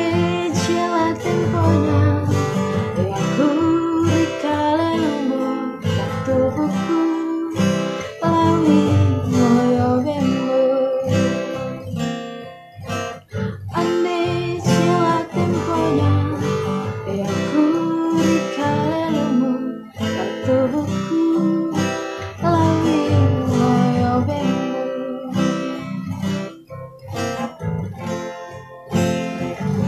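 Acoustic guitar music, strummed chords with a melody line running over them, with a short drop in level about thirteen seconds in.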